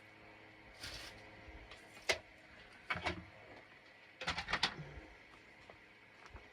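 Paper being trimmed and handled on a craft table: a few short rustles and cuts, a sharp click about two seconds in, and a quick run of cuts just past four seconds.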